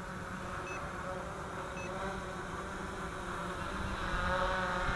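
Drone's propellers buzzing steadily as it hovers, the pitch wavering slightly as the motors hold position. Two short, faint high beeps sound about a second apart in the first two seconds.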